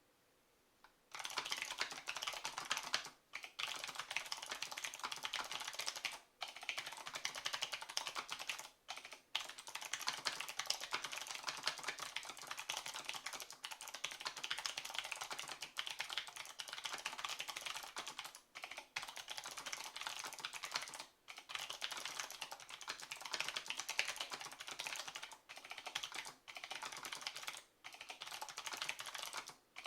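Mechanical keyboard with Hi-Tek Series 725 black clicky switches being typed on fast and continuously, starting about a second in, in a dense stream of sharp key clicks broken by brief pauses every few seconds.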